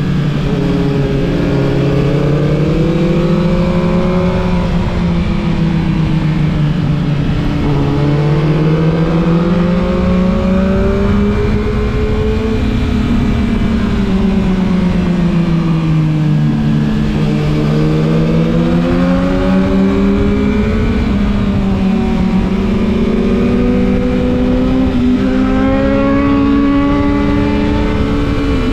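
Yamaha MT-09 SP's three-cylinder engine running on the move, its pitch climbing and dropping several times as the rider accelerates and rolls off, with a sharp step in pitch about two-thirds of the way through.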